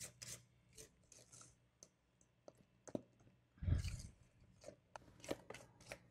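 Silicone spatula folding thick cake batter in a stainless steel mixing bowl: faint, irregular scrapes and soft clicks against the bowl and squelches of batter, with one louder bump a little past halfway.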